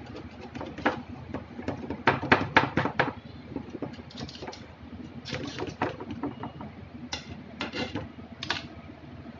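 A knife blade scraping and clicking against the side of a metal baking tin as it is run around the edge of a steamed dhokla to loosen it. Short strokes come in uneven groups, with a quick run of four or five about two seconds in.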